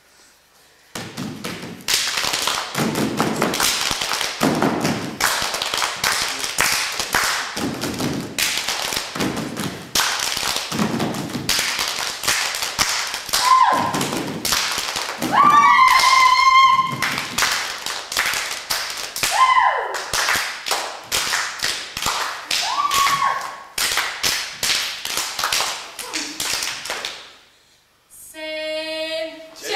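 Group of performers stamping their feet and clapping in a fast, driving rhythm, with a few high, sliding whooping cries in the middle. It starts about a second in and stops suddenly near the end.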